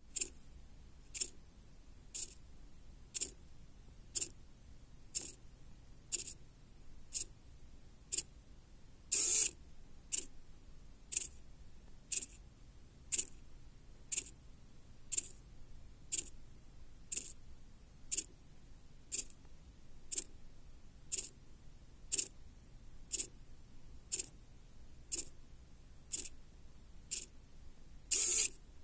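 Hobby servo motor stepping through a pre-programmed sequence, giving a short whir as it jumps to a new position about once a second. Two longer, louder moves come about nine seconds in and near the end.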